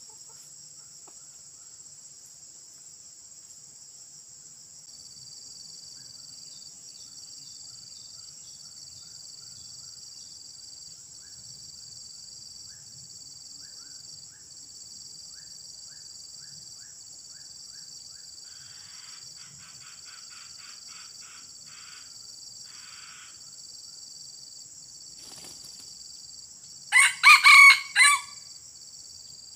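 Red junglefowl cock crowing once near the end: a short, loud crow in about three quick parts lasting just over a second, over a steady high-pitched drone of insects.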